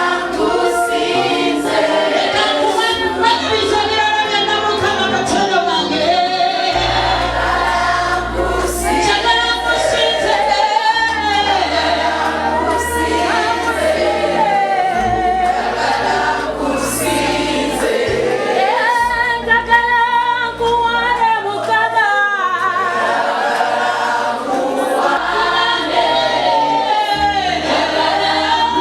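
Choir singing gospel music over a sustained bass line.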